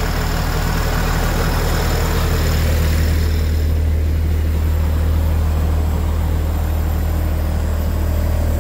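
Cummins ISC inline-six diesel engine of a school bus idling steadily with a deep, even hum, running again after an emergency-door start-interrupt wire was grounded. Its higher sounds fade about four seconds in, leaving mostly the low hum.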